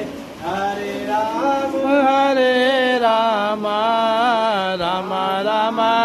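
Hindu devotional singing in a chant-like style: one voice holding long notes that waver up and down, with short breaks between phrases.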